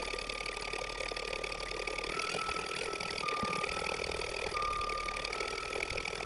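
Baby Lock Intuition embroidery machine stitching out a design, sped up to triple speed: a fast continuous stitching noise with a steady motor whine that steps slightly up and down in pitch every second or so.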